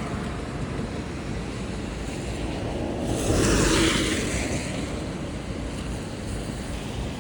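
Steady road or traffic noise, with one vehicle-like swell passing about three to four seconds in.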